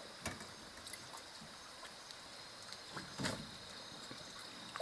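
Quiet riverside ambience: a steady high-pitched insect drone, broken by two brief sudden noises, one just after the start and one about three seconds in.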